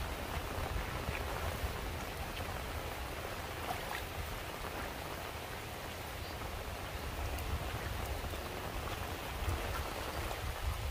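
Light drizzle falling: a steady hiss of rain with faint scattered drop ticks over a low rumble.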